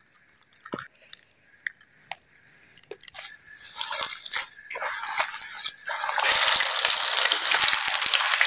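A few light clicks, then food frying in hot oil: the sizzle swells from about three seconds in and runs dense and steady from about six seconds.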